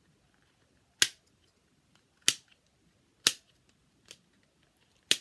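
Plastic fidget toy snapping sharply as it is pressed, four loud snaps and one fainter one about a second apart.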